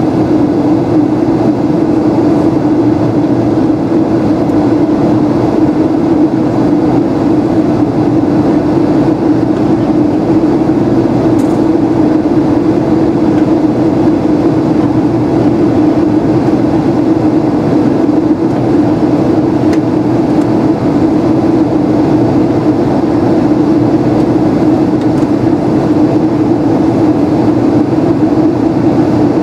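Airliner cabin noise in flight: the steady rumble of the jet engines and airflow, with a strong low hum.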